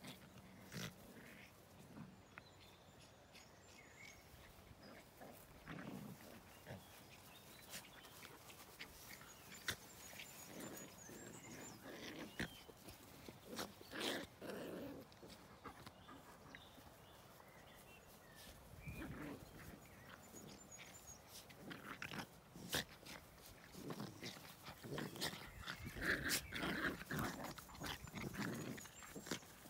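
Puppies play-fighting, giving short growls and yips in scattered bursts that come thicker and louder over the last few seconds.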